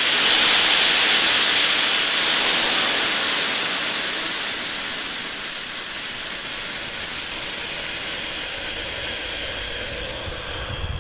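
Compressed air blasting out of a petrol air compressor's tank through its dump valve: a loud hiss, strongest at first, that eases over the first few seconds and then holds steady as the tank empties.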